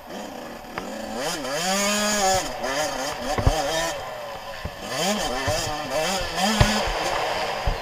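Suzuki RM 85's two-stroke single-cylinder engine, heard from the bike, revving hard and falling away twice, the pitch climbing about a second in and again around five seconds in. A few sharp thumps cut through, the loudest midway.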